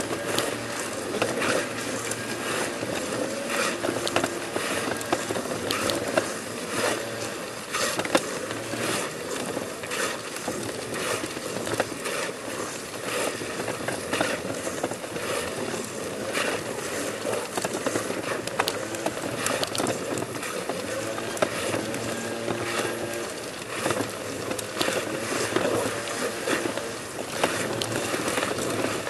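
A person army-crawling across stone paving: clothing and rubber-soled shoes scrape and rub on the paving stones, with irregular scrapes and small knocks.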